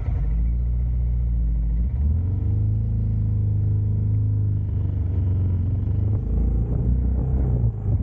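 Benelli Imperiale 400's single-cylinder engine running with a low, steady rumble. It revs up about two seconds in, then holds at the higher speed.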